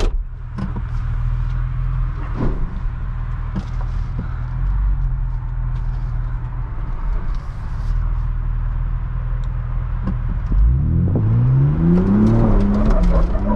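Ford Bronco Raptor's 3.0-litre twin-turbo V6 running at a low, steady idle-like pace, heard from the driver's seat, with a few knocks early on; about eleven seconds in the engine revs up in a rising sweep and holds under load as the truck climbs a steep obstacle.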